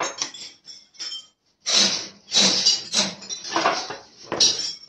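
Irregular metallic clanks and clinks from steel tools and parts being handled on a strapping-clip making machine while its mold is being adjusted.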